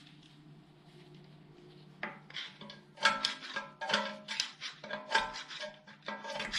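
Flathead screwdriver clicking and scraping against metal inside a BMW 2 Series rear brake disc's wheel-nut hole, winding back the drum-in-disc handbrake shoe adjuster to retract the shoes before the disc is knocked off. A quick string of irregular clicks begins about two seconds in.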